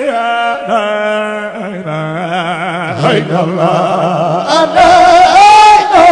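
A man chanting a Sufi zikr into a microphone in long, melismatic held notes that glide up and down. About four and a half seconds in, the chant becomes louder and fuller.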